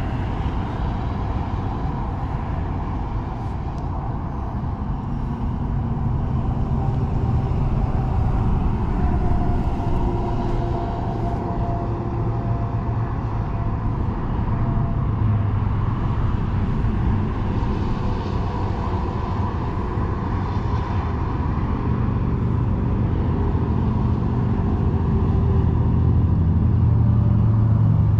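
Steady rumble of road traffic, with vehicles passing at a distance; it swells somewhat louder near the end.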